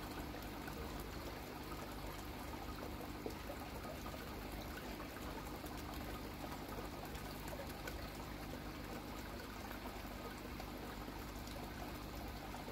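Steady trickle and splash of filtered water running back into a koi fry vat, with a low steady hum under it.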